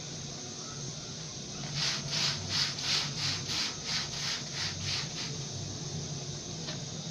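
Wooden rolling pin rolling out chapati dough on a board: about a dozen quick back-and-forth rubbing strokes, roughly three a second, that stop a little past halfway, over a steady low hum.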